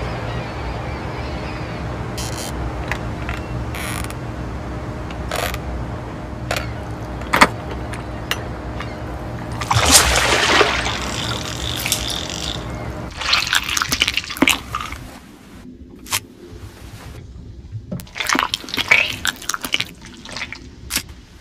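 Sea water and a fishing line: a steady low rumble with scattered drips, then a loud splash about ten seconds in as the line stirs the water, followed by irregular wet dripping and splashing.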